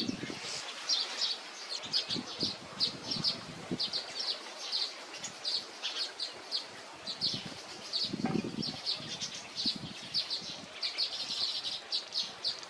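Weaver birds chirping in a fast, continuous chatter of short high notes, several a second, with a few soft low rustles or wing flutters, the clearest about eight seconds in.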